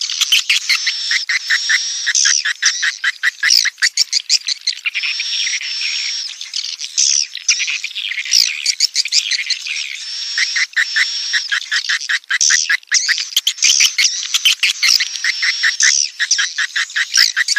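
Swiftlet chicks calling in the nest: a dense, continuous chatter of rapid clicking trills and high, short chirps.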